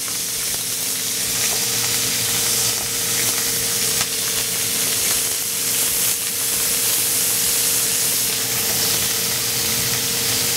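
Chicken pieces sizzling in a hot, oiled grill pan on a gas burner: a steady frying hiss that holds even throughout.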